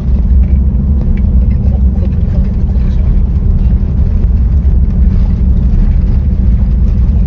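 Toyota Land Cruiser 70 (HZJ-71V) on the move: a steady, heavy low rumble of engine, road and wind noise, heard from inside the vehicle.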